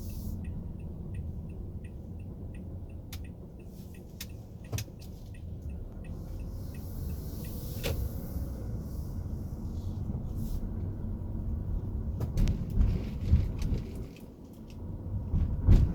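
Car interior road noise: a steady low rumble of the engine and tyres, with the turn signal ticking evenly for about the first half before it stops. Occasional knocks and bumps from the car come through, louder near the end.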